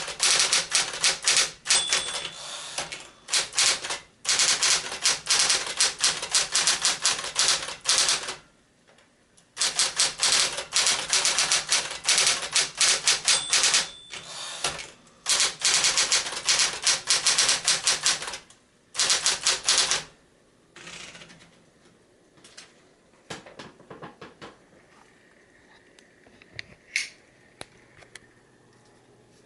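Sears Medalist Electric 12 electric typewriter (a Smith-Corona 5TE underneath) typing: fast runs of key strikes in bursts with short pauses. After about 20 seconds the typing stops and only a few scattered clicks remain.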